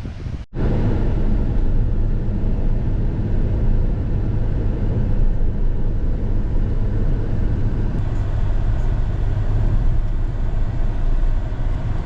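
Steady low rumble of a car in motion, road and engine noise with no change in speed.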